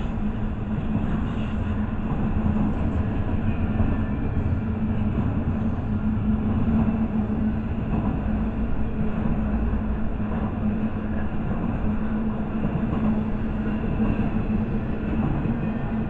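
Intermodal freight train cars, double-stack container well cars and trailers on flatcars, rolling steadily past close by. Steel wheels on rail give a continuous rumble with a steady low hum underneath.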